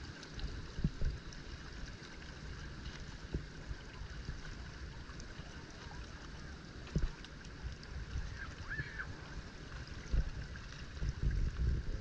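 Water lapping and gurgling against a moving boat's hull, over a steady low rumble with a few low thumps now and then.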